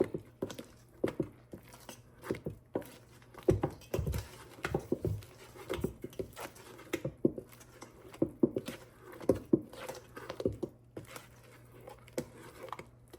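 A metal spoon knocking and scraping against a container and mixing bowl while soaked dried fruit is scooped into banana bread batter. The knocks come irregularly, about one or two a second, with a few heavier thuds about four seconds in.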